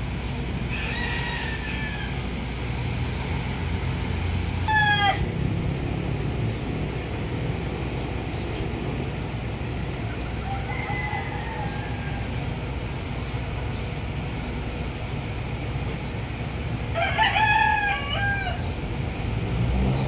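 Rooster crowing a few times, the loudest and longest crow near the end, over a steady low rumble.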